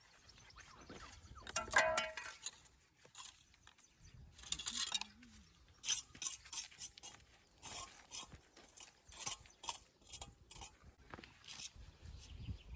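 Irregular sharp knocks and clinks of stone work, with a louder ringing knock about two seconds in followed by a run of separate short taps and clicks.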